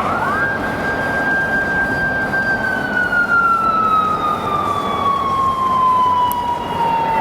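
Police motorcycle siren switching on: a wail that climbs quickly to a high pitch, holds steady for about two and a half seconds, then slowly falls. It is sounded as the speed measurement ends, signalling the speeding car to pull over.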